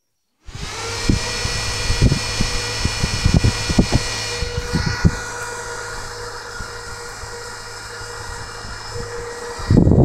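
Homemade fan made from a PC cooler and a 12 V printer motor switching on about half a second in, then running with a steady motor whine. A few knocks come in the first seconds as it is handled. Near the end there is a louder low rush of air as the fan is turned toward the microphone.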